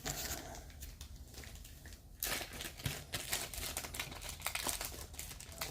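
Plastic packaging crinkling and rustling as it is handled, with a dense run of small crackles and clicks starting about two seconds in.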